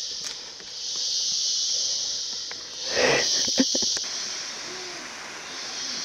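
Insects droning in a high hiss that swells and fades in waves every couple of seconds. About halfway through there is a brief rustle with a few knocks, the loudest moment.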